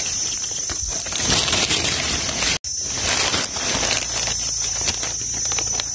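Dry leaf litter rustling and crackling as hands work among the leaves, over a steady high insect drone.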